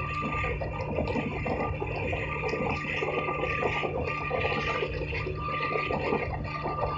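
Small motorboat's engine running steadily at speed, with water rushing and spraying along the hull.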